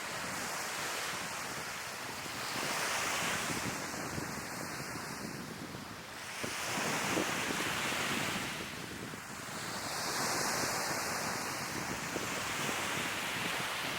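Sea waves breaking and washing on the shore, the surf swelling up three times, a few seconds apart, with wind on the microphone.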